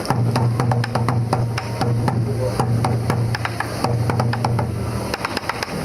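Sansa odori taiko drums beaten in a steady rhythm, with many sharp clicks from the drumsticks over a low booming drum sound that pulses about once a second.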